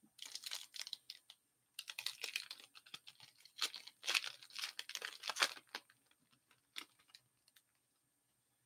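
A trading-card pack's shiny plastic foil wrapper being torn open and crinkled by hand, in three bursts of crackling over the first six seconds. A few faint clicks follow before it goes quiet.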